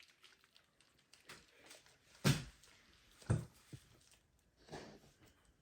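Quiet handling noises with two soft, dull thuds about a second apart near the middle.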